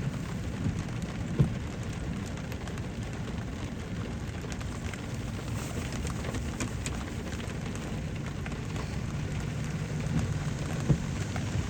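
Rain falling on a car, heard from inside with the window cracked: a steady patter with scattered drop ticks and a low hum underneath. Two louder single taps come, one about a second in and one near the end.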